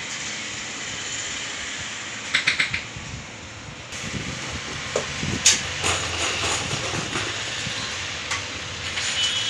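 A hand socket spanner clinking and knocking against steel bolt heads and the painted metal frame of a baby warmer stand as the bolts are tightened: a quick run of clinks about two and a half seconds in, sharper knocks near the middle, over a steady background hiss.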